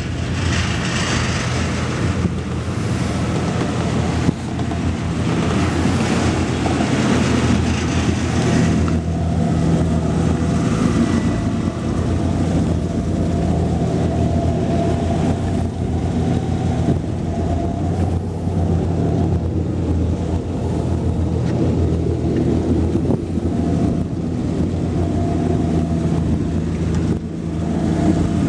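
Schooner's engine running at a steady low hum, with wind buffeting the microphone and water rushing along the hull, the wind and water louder in the first several seconds.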